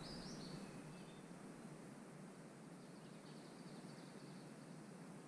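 Near-silent woodland ambience: a faint steady hiss with a few faint, high songbird chirps near the start and again around three seconds in.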